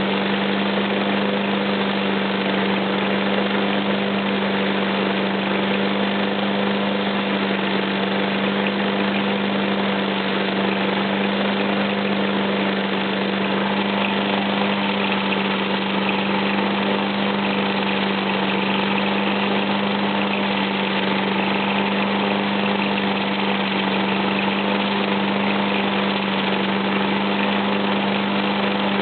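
Engine of a John Deere JX85 self-propelled lawnmower running steadily at a constant speed, warming up after a cold start.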